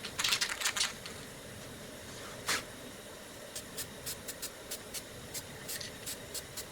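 Aerosol spray-paint can spraying in short hissing bursts during the first second, with one more short burst about 2.5 s in. From about 3.5 s on, a regular run of short sharp clicks, about three a second.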